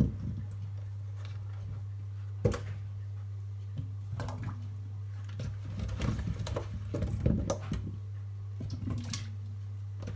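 Potatoes being handled and put into a steel pot of salted water: scattered light knocks and handling noises, with one sharp knock about two and a half seconds in, over a steady low hum.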